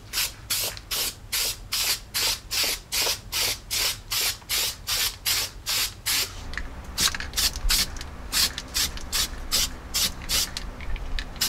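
Aerosol can of weld-through primer sprayed onto bare sheet steel in short hissing bursts, about two a second, then a quicker run of shorter bursts in the second half.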